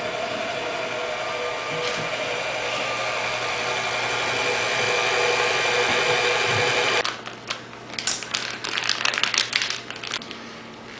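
Electric mixer running steadily, beating choux pastry dough with eggs into a thick paste, then switched off about seven seconds in. Light clicks and knocks follow.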